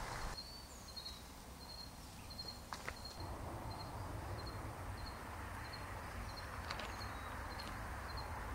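Outdoor ambience: a short, high chirp repeating steadily about twice a second, over a low steady rumble, with a few faint clicks.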